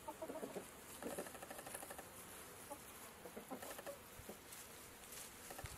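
Chickens clucking softly: short low clucks at the start, a quick run of clucks about a second in, and a few more past the middle.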